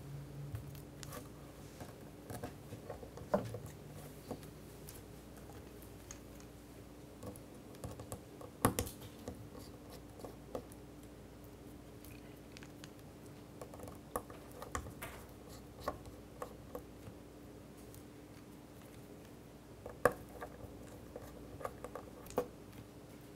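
Faint, scattered clicks and light scrapes from a small Phillips screwdriver working tiny screws out of an iPhone 4's internal metal shield, over a faint steady hum.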